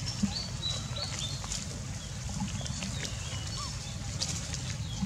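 Scattered short, high animal chirps and whistles, some gliding in pitch, over a steady low rumble, with a few soft clicks.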